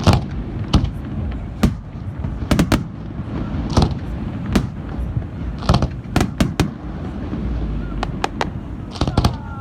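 Fireworks bursting: a string of sharp bangs at irregular intervals, some coming in quick clusters of two or three.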